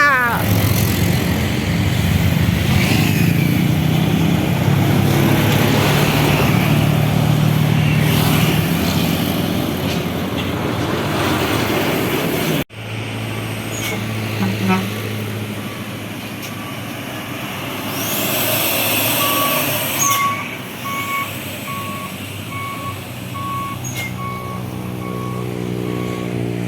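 A heavy vehicle's diesel engine runs loudly for about twelve seconds and then breaks off at an abrupt cut. A vehicle then idles while a beeper sounds a short tone over and over, about once a second, with a hiss of air lasting a couple of seconds midway.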